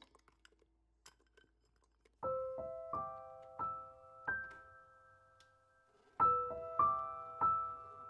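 Background piano music of slow single notes and chords, each ringing out and fading, starting about two seconds in after a few faint clicks.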